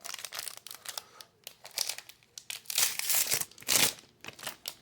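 Crinkling and rustling of a plastic-foil trading card pack wrapper as baseball cards are handled, in irregular bursts that are loudest about three to four seconds in.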